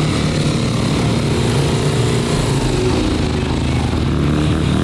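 Dirt bike engines running hard during a motocross race, the engine note holding steady with small rises and falls in pitch.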